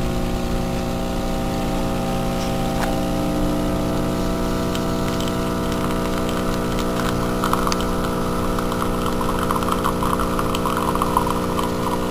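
Electric blade coffee grinder running with a steady motor hum while grinding dark-roasted coffee beans; a crackly rattle joins in about seven seconds in.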